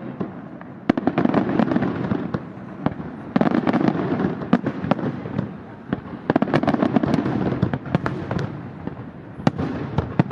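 Aerial fireworks display: dense volleys of shell bursts and rapid crackling reports, surging in waves about a second in, about three and a half seconds in and about six seconds in.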